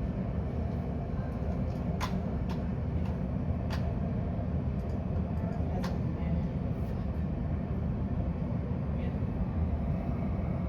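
A steady low rumble, with a few short sharp clicks about two, three and a half, and six seconds in.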